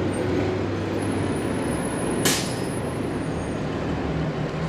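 Street traffic: a heavy vehicle's engine running low and steady, with one short, sharp hiss about two seconds in.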